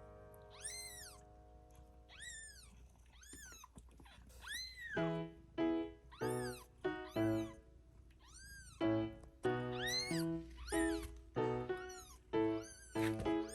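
A cat meowing over and over in short, high rising-and-falling calls, about a dozen in all.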